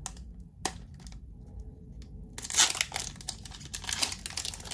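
Foil Pokémon booster pack wrapper being torn open and crinkled by hand: a single click about half a second in, then dense crinkling and tearing from about halfway through, loudest just after it starts.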